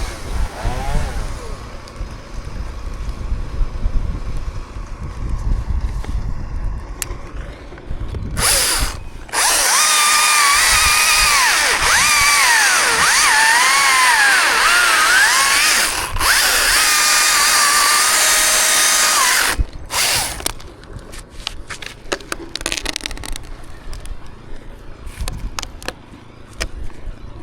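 Chainsaw running at high revs for about ten seconds, its pitch dipping and rising as it cuts, then stopping. Low rumbling before it and scattered knocks after it.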